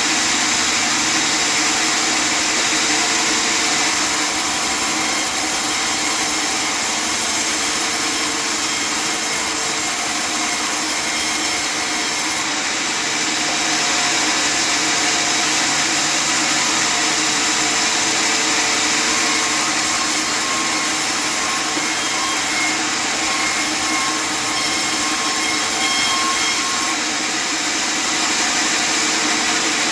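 Custom-made table sawmill running steadily with a loud, continuous machine noise and a steady hum, easing slightly a couple of times.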